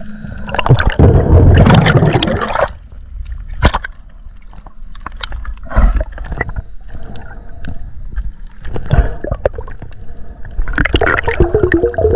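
Water sloshing and gurgling, with irregular knocks and louder surges of splashing about a second in and again near the end.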